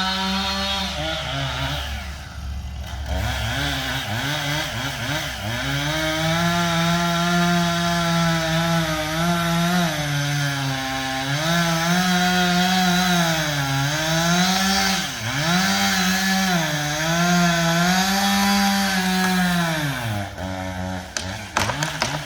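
Two-stroke chainsaw cutting into a tree trunk, its engine pitch repeatedly sagging under load and picking back up. Near the end the saw drops off and sharp cracks of splitting wood begin as the cut tree starts to give.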